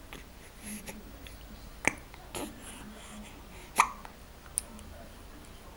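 Baby hiccupping: short, sharp hiccups, the two loudest about two seconds apart, with a few softer ones between.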